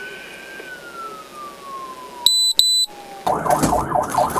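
Police car siren in wail mode, one long tone falling slowly in pitch. About two-thirds in come two short, loud, high beeps, and near the end a loud rough burst of noise takes over.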